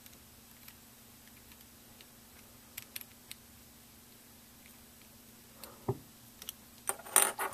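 Plastic pieces of a Meffert's Venus cube, a 3x3 puzzle, clicking faintly as it is taken apart, with a few sharper clicks about three seconds in and a knock near six seconds. Near the end the pieces start clattering loudly together.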